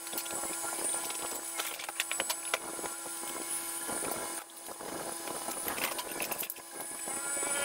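Unboxing a new plastic wet/dry shop vac: the cardboard box rustles and scrapes, and the plastic drum and power head knock and click irregularly as they are lifted out and pulled apart.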